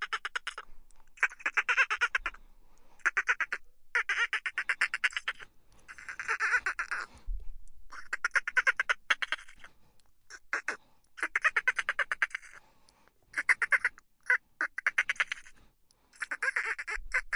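Dolphin burst-pulse chatter: rapid trains of clicks, each lasting about a second, repeating every second or so with short pauses between.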